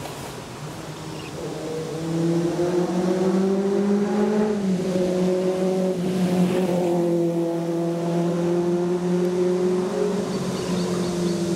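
An engine running with a steady low drone that grows louder about two seconds in, drops slightly in pitch a couple of seconds later, then holds.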